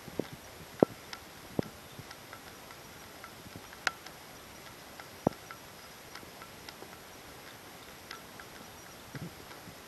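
Small metal silencer parts clinking and knocking against the bowl and each other as a hand stirs them in acetone: an uneven scatter of sharp clicks, the loudest about a second in and near four and five seconds in.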